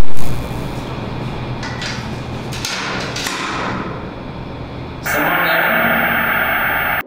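Edited glitch and static sound effects: a loud burst at the start, then a noisy crackling texture with a few brief sweeps. About five seconds in it switches to a harsher electronic static buzz, which cuts off suddenly.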